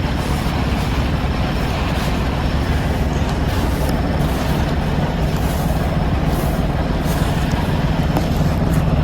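Semi truck's diesel engine idling steadily, a low even hum, with a few faint ticks over it.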